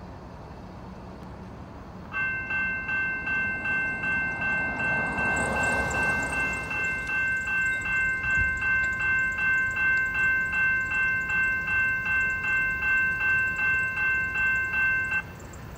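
General Signals type 2 electronic railroad crossing bells ringing as the crossing activates: a steady electronic ding at about two strokes a second that starts about two seconds in and cuts off suddenly as the WABCO Model 75 gate arms come fully down. A car passes close by about five seconds in.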